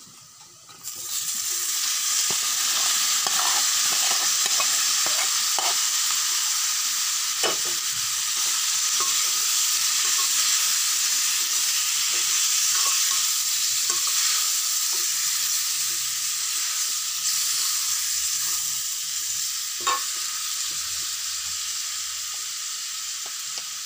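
Boiled pork pieces dropped into hot oil in a wok, setting off a loud steady sizzle that starts suddenly about a second in. A metal ladle stirs the meat, scraping and now and then clinking against the wok.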